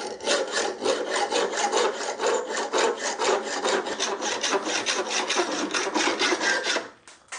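Hacksaw cutting through a steel bolt: fast, even back-and-forth strokes of the blade rasping through the metal. It stops about seven seconds in.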